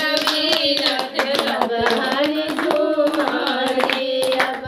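A group of women singing a Bihari wedding folk song (geet) together in held, unison notes, keeping time with hand clapping.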